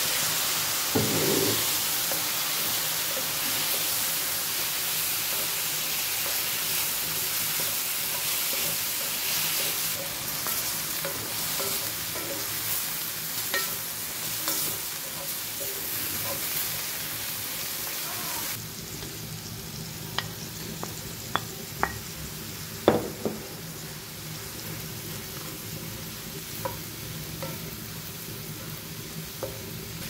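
Vegetables and beef stir-frying in a hot pan: a steady sizzle with a spatula stirring. About two-thirds of the way through the sizzle suddenly drops, and then the spatula clicks against the pan several times.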